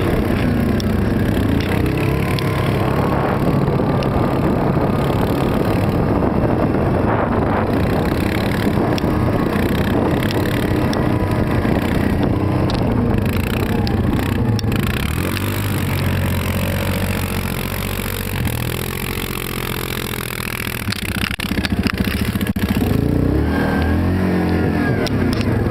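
ATV engine running as the quad rides over snow, its pitch rising and falling with the throttle. It eases off and goes quieter for a few seconds past the middle, then picks up again near the end.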